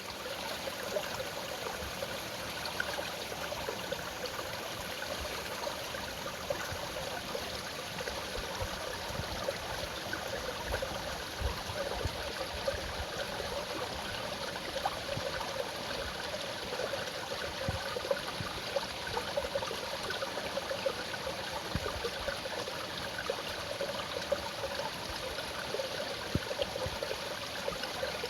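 Mountain valley stream flowing over rocks, a steady babbling rush of water with small gurgles and splashes throughout.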